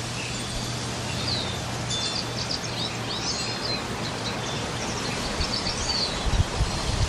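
Small birds chirping and twittering over a steady hiss of wind, with a few low thumps near the end.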